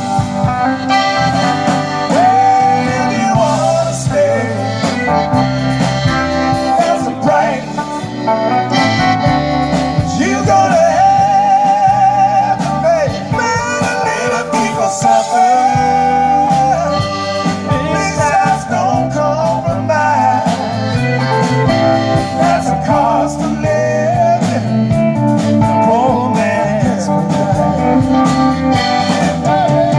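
Live blues band playing loud: electric guitar, drum kit and piano accordion over a steady beat.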